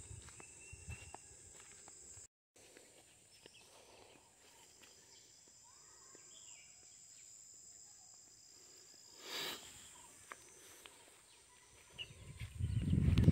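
Steady high-pitched insect drone, with footsteps crunching on dry leaf litter in the first couple of seconds. A loud low rumble builds near the end.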